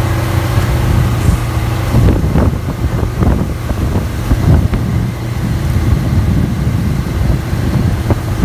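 Motorboat engine running steadily under way, with wind buffeting the microphone and the wake rushing; the gusts pick up about two seconds in.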